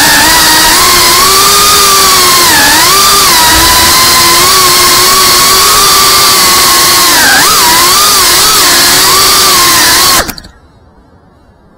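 Brushless motors and propellers of a 5-inch FPV quadcopter whining at high throttle. The pitch wavers and dips briefly twice, then cuts off suddenly near the end as the quad lands and the motors stop.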